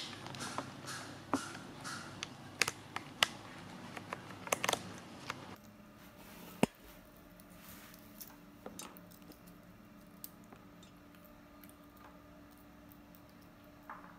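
Small sharp clicks and taps of a baby monkey eating and handling food in a wire cage, many in the first half and then only a few faint ticks after the background changes abruptly about five and a half seconds in.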